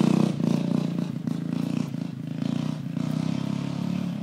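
Racing lawn mower engine running under power, its note steady and growing gradually fainter as the mower pulls away.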